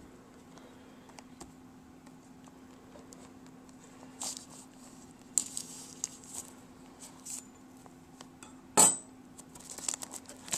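Kitchen knife cutting and scraping at the plastic shrink-wrap on a cardboard software box: scattered small clicks and short scratchy strokes, one sharp knock about nine seconds in, then plastic wrap starting to crinkle near the end.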